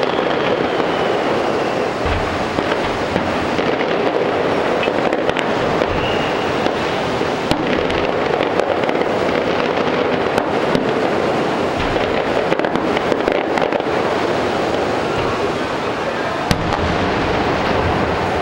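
Fireworks display going off nonstop: a dense, continuous crackling and rumbling, with many sharp pops and bangs scattered throughout.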